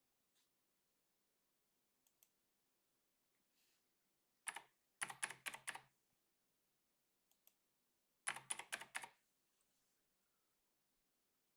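Computer keyboard typing in two short bursts of quick keystrokes, one about halfway through and one a few seconds later. A few light single and paired clicks fall between them.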